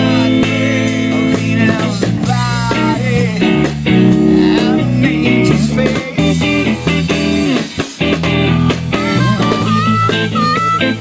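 Live blues-funk band playing: electric guitar, bass guitar and drum kit. Near the end a harmonica joins with a short riff repeated several times.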